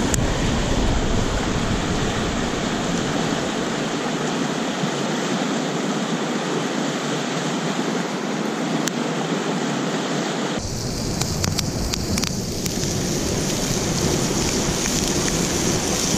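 Steak sizzling on a grill over a campfire: a steady hiss with a few sharp pops from the fire, the sound growing fuller about ten seconds in.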